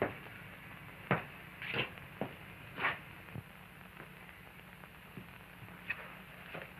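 Hiss and low hum of an old film soundtrack, with a few scattered clicks and short rustles.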